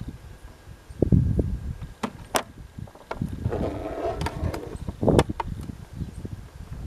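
A 1948 Royal Quiet De Luxe portable typewriter being handled: several sharp mechanical knocks and clacks with dull thuds, and a short rattle about halfway through.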